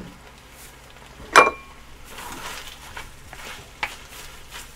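A spoon stirs and scrapes rice mixed into nakgopsae around a pan, with a faint sizzle, just after sesame oil has gone in. One sharp, ringing metal clink comes about a second and a half in, and small knocks follow near the end.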